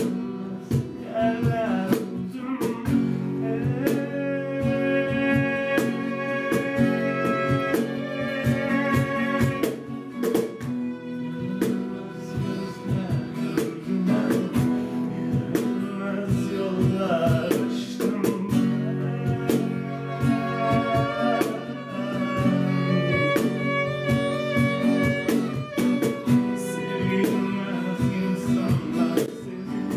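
Live acoustic folk-rock song: a strummed acoustic guitar, a bowed violin playing long held melody lines, and a cajon tapping out the beat with sharp hand strikes, with a man singing over them.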